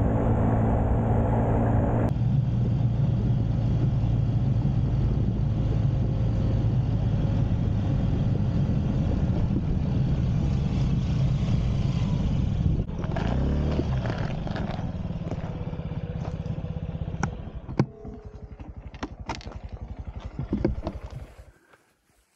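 Small Honda motorbike engine running with wind rush while riding along the road. About halfway through it slows and the engine drops to a softer, lower running sound, with a few clicks and knocks toward the end. The sound then cuts off to near silence.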